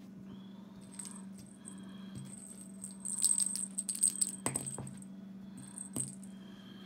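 Small metal bell jingling in short shaken bursts, the longest and loudest about three to four seconds in, with two sharp knocks a little later. A steady low hum runs underneath.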